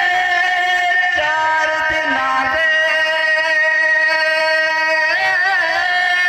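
A man singing a devotional naat solo into a microphone, holding one long steady note for several seconds, then breaking into wavering ornamented turns near the end.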